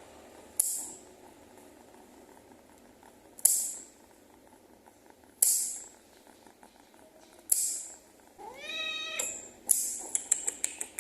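An agitated cat hissing in four sharp bursts about two seconds apart, over a low purr, then a drawn-out meow and a quick run of short spitting hisses near the end: the cat is defensive while being held for claw trimming.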